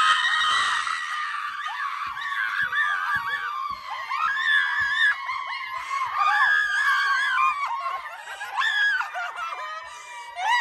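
A group of women screaming and squealing in high-pitched, excited voices, mixed with laughter.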